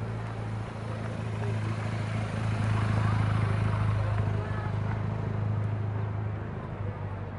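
A motor vehicle's engine hums steadily, rising to its loudest about three seconds in and then easing off, over street noise and voices.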